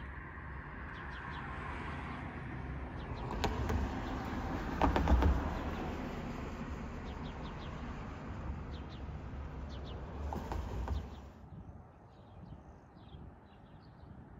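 Outdoor ambience: a rush of noise that builds to a peak about five seconds in and then fades, with a few sharp clicks and faint bird chirps.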